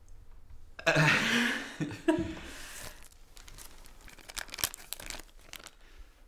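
Hands handling something: a loud rustling, tearing sound about a second in, a shorter one about two seconds in, then a run of small clicks and taps.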